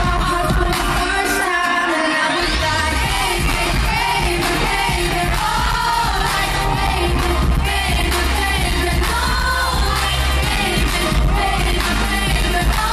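A dance-pop song with sung vocals plays loud through a venue's sound system. A rising sweep about two seconds in brings the heavy bass back in.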